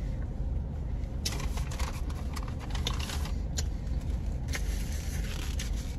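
Foil burger wrapper crinkling in short rustles and a person chewing, over a steady low hum inside a car.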